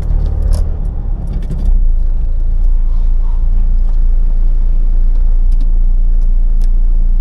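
Turbocharged Acura RSX's K-series four-cylinder engine, heard from inside the cabin, running unevenly as the car creeps in. It settles into a steady low idle about two seconds in.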